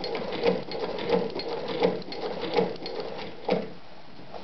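Gemsy 2972 shoe-patcher sewing machine, a Singer 29-class clone, turned by hand at its flywheel and stitching leather: a rhythmic clack of needle and feed about once every two-thirds of a second, stopping about three and a half seconds in.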